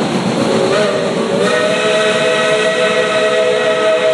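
Steam locomotive's whistle blowing a long chord of several notes, starting about half a second in and held for about three and a half seconds over the hiss of steam.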